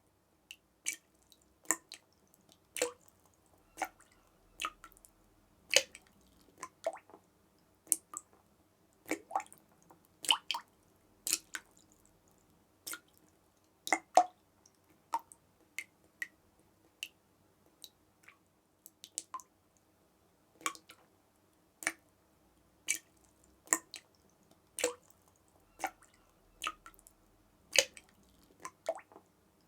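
Water drops falling one at a time, about one to two a second at irregular intervals, each a short sharp plip with a brief ring, in a quiet space.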